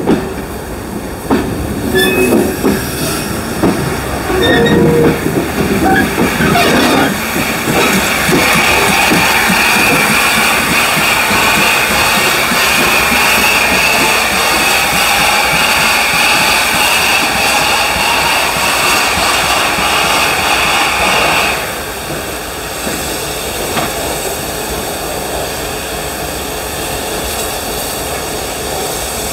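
NSW 38 class Pacific steam locomotive 3801 rolling slowly past, its running gear clanking and its wheels squealing. About a quarter of the way in a loud, steady hiss of venting steam begins and holds for some fourteen seconds before cutting off sharply, leaving the quieter rumble of the moving engine.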